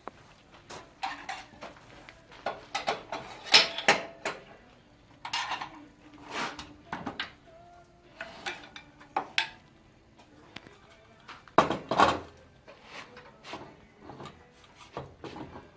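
Irregular metallic clinks and knocks from a woodturning lathe's chuck and its tools being handled as a bowl is clamped and the chuck is tightened, some strikes ringing briefly. A louder clatter of knocks comes about three quarters of the way through.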